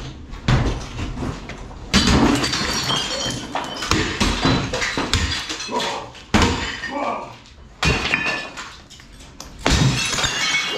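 Glass bottles being smashed with a sledgehammer and a bat: about six hard blows, each with glass shattering and shards tinkling down.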